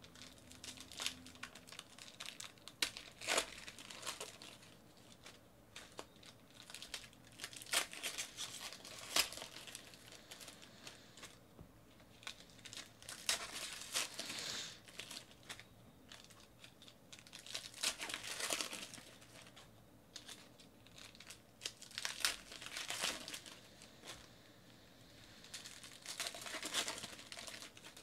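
Foil trading-card pack wrappers crinkling and tearing as packs are ripped open by hand, in bouts every few seconds.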